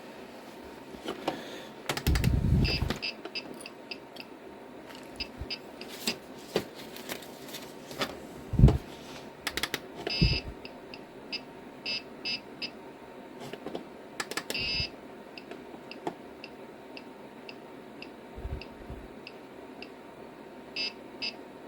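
Short high electronic beeps, single and in quick runs with a few longer ones, among clicks and knocks of handling on a bench. A low thudding rumble comes about two seconds in, and the loudest event is a sharp knock a little before halfway.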